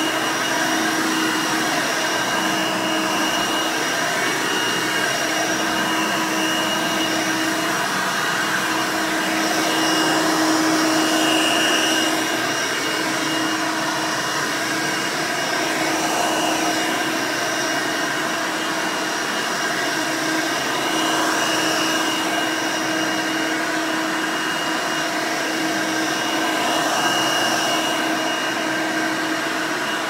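Custom-built Hoover Elite upright vacuum with an Elite II motor running steadily while pushed over carpet, a constant rushing whoosh with a steady hum, briefly a little louder about ten seconds in.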